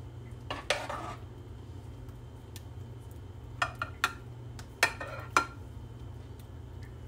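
Metal spoon clinking and scraping against a glass baking dish while spreading béchamel sauce, in a few short strokes: about a second in, around four seconds and around five seconds. A steady low hum runs underneath.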